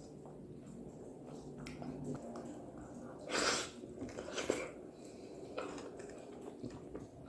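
Close-miked wet chewing and biting of soft, juicy fruit, with a few louder moist smacks, the loudest about three and a half seconds in.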